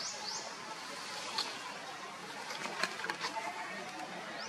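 Outdoor background noise with faint distant voices. A bird's run of quick rising chirps ends just as it begins, and a few sharp clicks come about midway.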